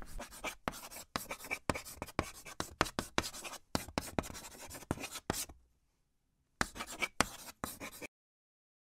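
Chalk writing on a blackboard: quick scratching strokes, broken by a pause of about a second past the middle, then a few more strokes that stop about a second before the end.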